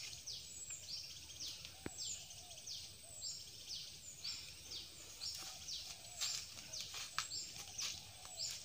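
Forest birds calling: a continuous run of high, quick downward chirps, two or three a second, with a softer, lower repeated call underneath.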